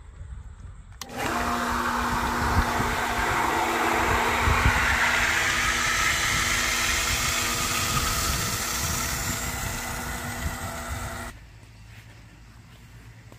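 A small motor runs steadily with a humming tone for about ten seconds, switched on about a second in and cut off abruptly.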